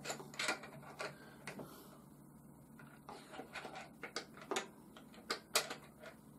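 Light, irregular clicks and taps of the wet brass tumbler's parts being handled and fitted back together, in two loose clusters with a short pause between.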